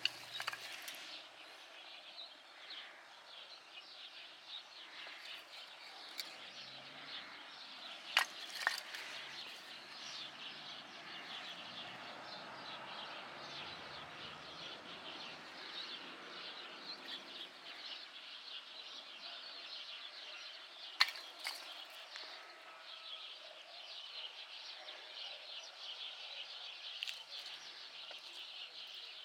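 Pieces of sawn tree branch rustling and shifting in a pile as they are handled, with a few sharp clicks of wood knocking on wood. Birds chirp faintly in the background.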